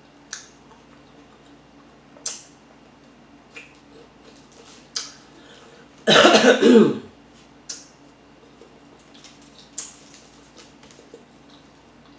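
Close-up eating sounds: scattered short mouth clicks and smacks while chewing chili dogs and curly fries. About six seconds in comes a loud cough lasting about a second, the loudest thing here.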